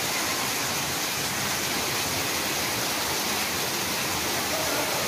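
Fountain water from a dome-shaped bell jet and small spray jets splashing steadily into its pool.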